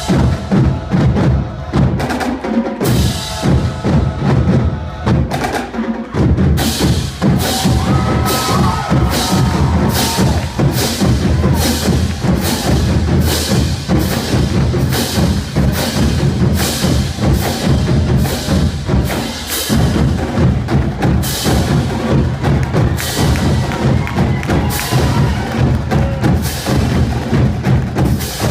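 High school marching drumline playing a fast percussion piece: dense rhythmic drum strikes over a heavy bass-drum pulse, loud throughout.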